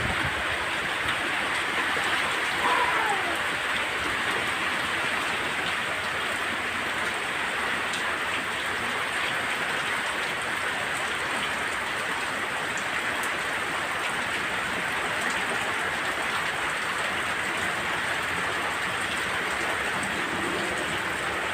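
Heavy rain pouring steadily in a strong windy storm, an even, continuous rush. A brief falling whistle comes about three seconds in.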